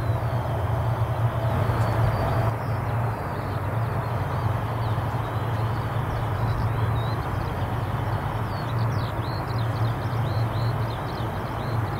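Lockheed C-130K Hercules's four Allison T56 turboprop engines running at taxi power: a steady low propeller drone over a broad hiss.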